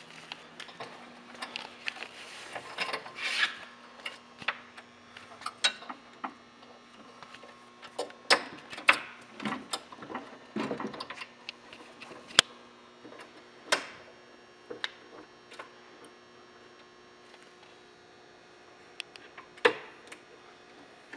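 Irregular knocks, clicks and scraping of a metal TV lift mechanism being handled against a wooden cabinet as it is positioned and bolted in, with a faint steady hum underneath.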